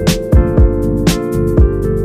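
Background music with a steady drum beat over held keyboard chords.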